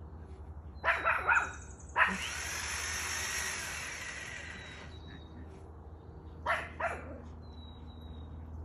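Small puppy barking in short, high bursts: three quick barks about a second in, a single bark at two seconds, and two more near the end. These are the alert barks of a young dog trying to guard its home. A steady hiss runs for a few seconds after the second bark.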